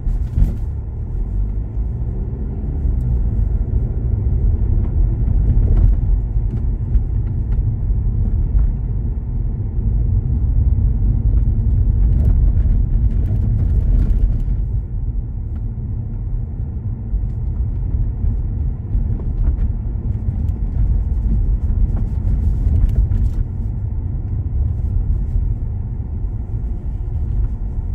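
A car driving at steady speed: a continuous low rumble of engine and road noise, with a few faint clicks.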